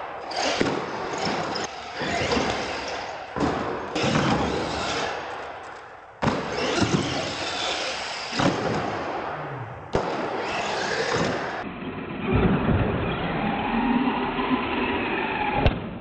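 R/C monster trucks driving and jumping ramps on a concrete floor: motors whining up and down, tyre noise, and thuds and bangs as the trucks land and bounce. The sound cuts abruptly between short clips a few times.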